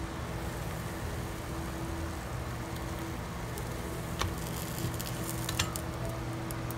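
Egg and shredded cheese sizzling steadily on the hot plates of a mini waffle maker. A couple of light clicks about four and five and a half seconds in come as the cooked waffle is lifted off the plates.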